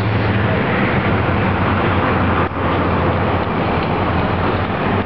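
Steady, loud traffic noise with a low engine hum.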